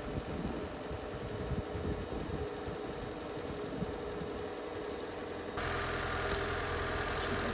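Car engine idling: a fainter, uneven low rumble that switches abruptly about five and a half seconds in to a steadier, louder idle hum.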